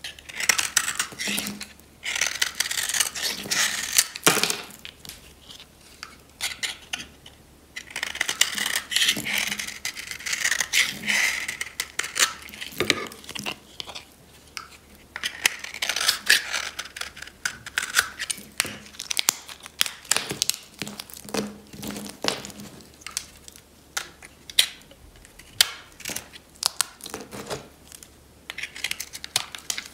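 Snap-off utility knife blade shaving a dry bar of soap, long rasping scrapes as the blade draws across the surface. Later these give way to a quick run of crisp crunchy clicks as brittle chips crack off the bar.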